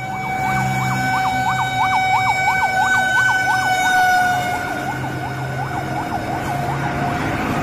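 Fire truck siren: a fast up-and-down warble, about three cycles a second, over a steady high tone. The steady tone drops slightly in pitch about halfway through as the truck passes.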